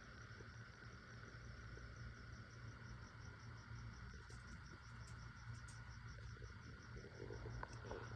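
Very faint room tone: an insect chirping high and fast in an even pulse, over a steady low hum.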